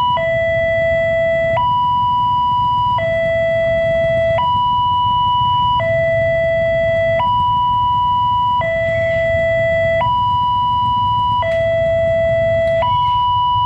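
Railway level-crossing electronic alarm sounding from its horn speaker on the crossbuck post: a loud two-tone signal that switches between a lower and a higher tone about every second and a half. It is the warning that a train is approaching, sounding while the barrier is down.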